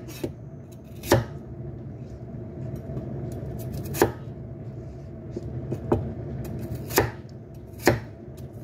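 Cleaver chopping peeled potatoes into cubes on a thick wooden chopping block: about six separate knocks of the blade hitting the board, irregularly spaced a second or more apart, over a steady low background hum.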